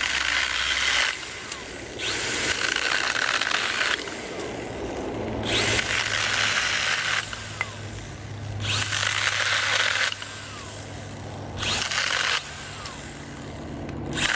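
Stihl GTA26 battery-powered mini chainsaw running in repeated bursts of a second or two as the trigger is squeezed and let go, its chain cutting through small tree limbs.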